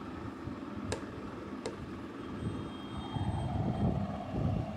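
A metal spoon clinks twice against a glass plate, about a second in and again under a second later, over a steady low rumble that grows louder for the last couple of seconds.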